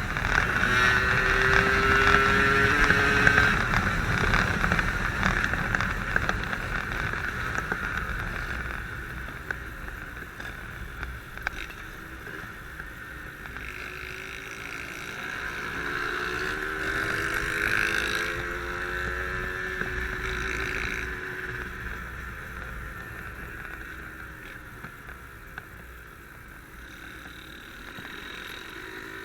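Yamaha RD135 two-stroke single-cylinder motorcycle engine running on the move, its pitch rising and falling with the throttle, with wind rushing past. It is loudest in the first few seconds, dies back, and swells again about two-thirds of the way through.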